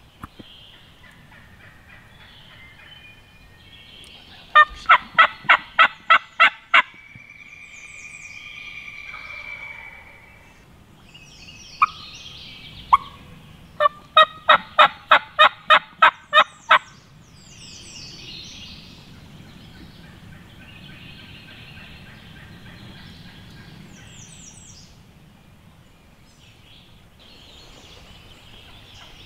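Two runs of loud, evenly spaced turkey yelps, each about eight or nine notes over two to three seconds, some ten seconds apart. Fainter calls of other birds come in between.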